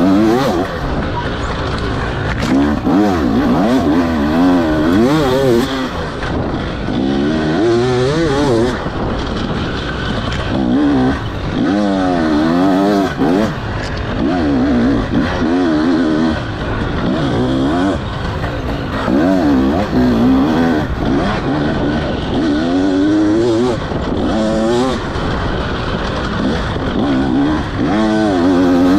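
A KTM 300 XC-W's 300 cc two-stroke single-cylinder engine with an Akrapovic slip-on exhaust, under race load, revving up and dropping back again and again as the rider accelerates, shifts and rolls off through the trail.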